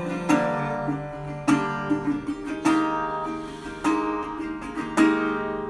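Acoustic guitar playing alone. Chords are struck about five times, roughly once every second and a quarter, and each is left to ring.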